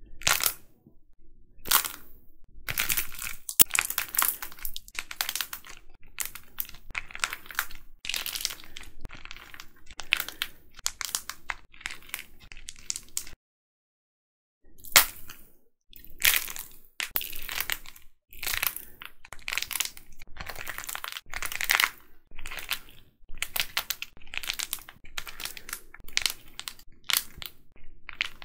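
Painted plaster-clay figures squeezed and broken by hand: dense, repeated cracking and crunching as the hardened shell splits and crumbles. There is a short silent break about halfway through.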